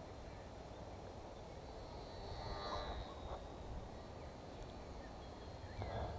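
Small electric RC trainer plane's motor and propeller buzzing high in the air, swelling as it passes about two and a half seconds in, over a steady low rumble of wind on the microphone.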